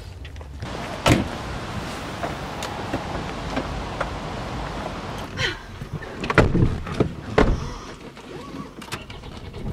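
Car doors opening and shutting as people get into a car, with rustling movement between; a sharp thud about a second in and two loud door slams about six and seven seconds in.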